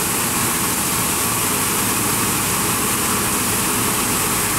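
CNC machining center running a boring operation on a chromoly BMX crank arm, cutting the 1-inch spindle-boss hole, with flood coolant spraying against the inside of the enclosure window. The sound is a steady hiss of spray over the machine's running hum.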